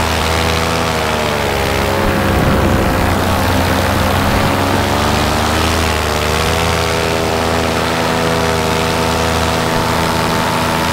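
Vittorazi Moster 185 single-cylinder two-stroke paramotor engine running in flight, its pitch sagging and rising again a couple of times.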